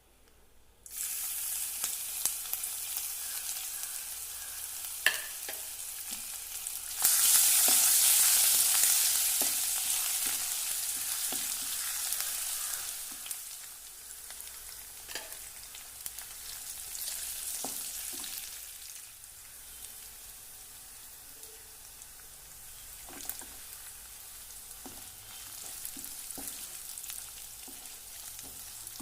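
Food frying in hot oil in a pan, with a steady sizzle and occasional knocks of a spoon stirring against the pan. The sizzle starts about a second in, jumps sharply louder about seven seconds in, then dies down gradually over the next several seconds.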